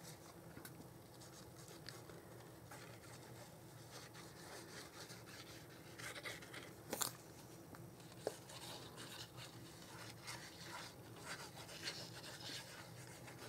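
Faint rustling and rubbing of paper and cardstock being handled and pressed down, with scattered small taps and a sharper click about seven seconds in.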